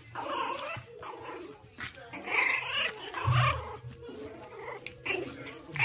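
Pug puppies play-fighting, giving high, squeaky growls and yelps in several short bursts, the longest about halfway through.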